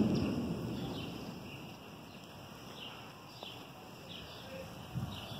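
Thunder rumbling and fading away over the first second or two, with birds chirping repeatedly in short, falling notes. A brief low thump comes near the end.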